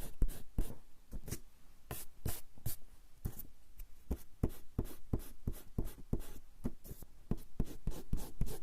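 Rubber eraser rubbed back and forth on coarse straw paper (warabanshi), a continuous run of short scrubbing strokes at about three a second, lighter for a couple of seconds after the start.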